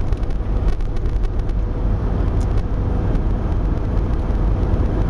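Steady rumble of road and engine noise inside the cabin of a car moving at highway speed.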